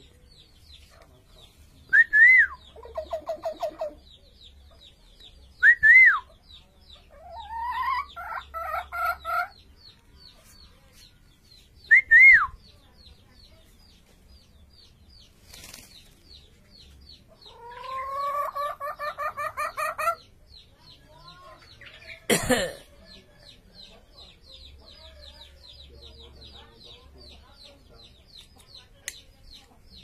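Caged hill myna mimicking a chicken: three loud, sharp whistled calls spaced a few seconds apart, each followed by a quick run of hen-like clucks, then a longer clucking run. One sharp click sounds about two-thirds of the way through.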